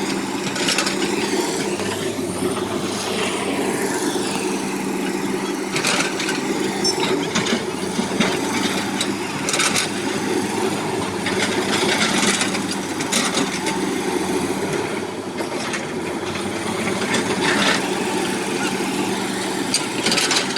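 Excavator engine running steadily under work, with several short clanks or knocks scattered through it.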